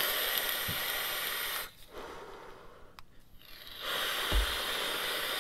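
Airy hiss of air being drawn hard through a vape tank's airflow and coils (Carrys Pisces tank on a box mod). Two long pulls come about two seconds apart, with a soft low bump early in the second. The tank's two large spring coils are slow to heat up.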